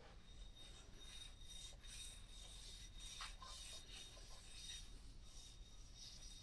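Faint, repeated rubbing strokes of a Bridgeport mill's metal gib slid back and forth on a blue-inked granite surface plate: spotting the scraped gib to check how flat it is.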